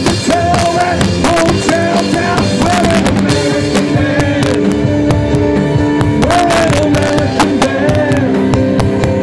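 Live band playing with a man singing: two grand pianos, a drum kit and an electric guitar, with regular drum hits under the sung melody.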